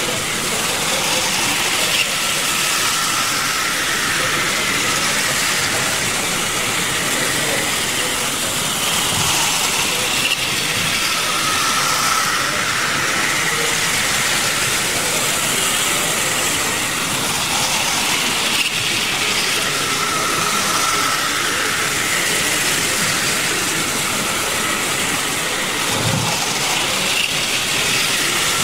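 Playcraft model train running round its track, the small electric motor and wheels whirring steadily, with a brighter whine coming back every several seconds as the train passes close.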